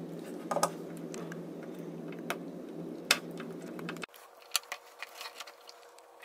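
Small sharp clicks and ticks of hands working on a wiring harness, cutting back its tape, over a steady low hum that drops out abruptly about four seconds in.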